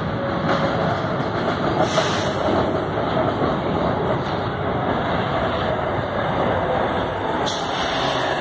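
Metro train pulling into the station, its wheels on the rails and its running gear making a steady roar as it comes alongside the platform.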